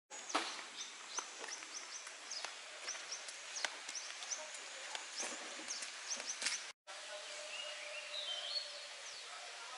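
Outdoor ambience with birds chirping in many short, high, falling calls, and scattered clicks through the first part. The sound cuts out briefly about two-thirds through; after that a faint steady hum and higher warbling calls come in.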